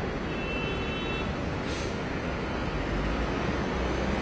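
Road traffic: vehicle engines and tyres rumbling steadily. A brief high-pitched tone sounds near the start, and a short hiss comes about two seconds in.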